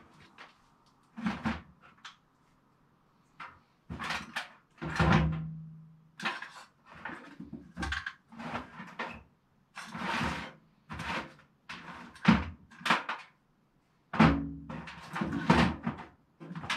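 Rummaging and handling small hard objects: an irregular run of clacks, knocks and rustles, with a short lull about two seconds in.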